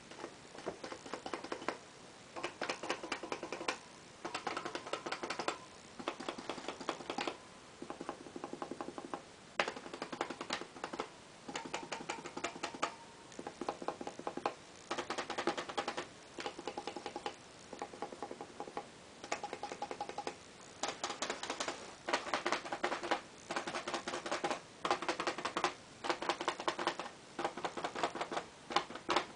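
A pointed tool worked in the square holes of a metal template on a mechanical device, making bursts of rapid clicking and rattling about a second long, with short pauses between them.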